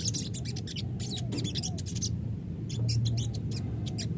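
Sogon (crested jay) giving rapid, high, chattering calls in quick clusters of sharp notes, the 'ngeriwik' call used as a lure to set other sogon calling. A steady low hum runs beneath.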